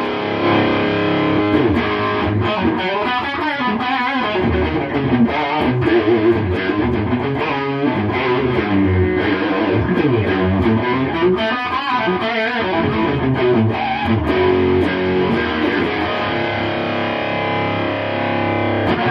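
Electric guitar played through a 1988 Marshall JCM800 2203 100-watt tube amp head, continuous riffing and lead lines with string bends. The amp is freshly repaired and working again.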